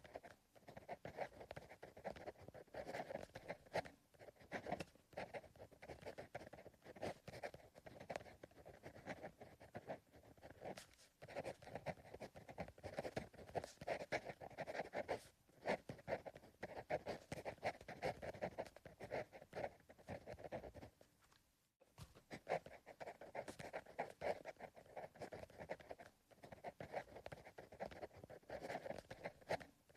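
Pencil writing on paper: continuous soft scratchy strokes, broken by brief pauses and one longer pause a little past the middle.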